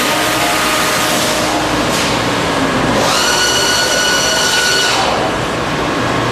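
Komo CNC machine milling aluminium plate: a loud, steady hiss of cutting, with a high-pitched cutting whine from about three seconds in that stops about two seconds later.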